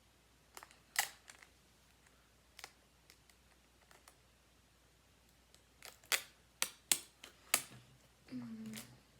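Irregular sharp clicks and crackles of packaging tape and cardboard being handled and worked by hand. They are sparse at first and come in a quicker cluster of louder ones about six seconds in.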